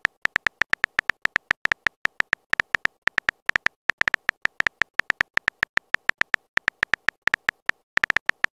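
Phone-keyboard typing sound effect: short, sharp tonal key clicks, about six or seven a second in an uneven rhythm, as a text message is typed out.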